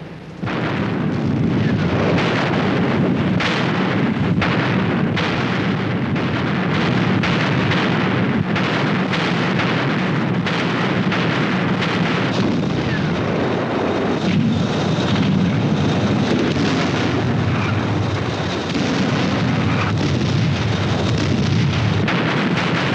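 Massed artillery barrage: a dense, unbroken din of gunfire and explosions that comes in about half a second in and keeps up, many blasts overlapping.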